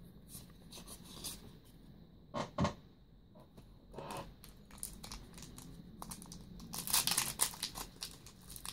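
Foil booster-pack wrapper crinkling and tearing as it is opened, the crackling densest about seven seconds in. Before it, two soft knocks about two and a half seconds in.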